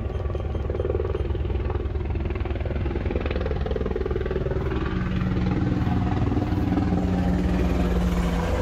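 Helicopter flying low overhead: a fast, even rotor beat that grows louder as it comes over, with a steady hum joining about five seconds in.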